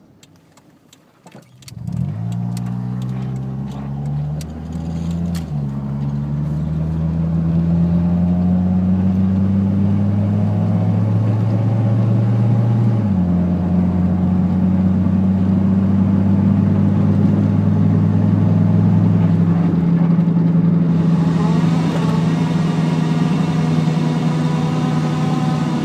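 A 1995 Honda Civic DX with automatic transmission, its engine starting to pull about two seconds in and running on under load, the engine note jumping in pitch in a few distinct steps. The owner says a weird whining comes and goes with the throttle.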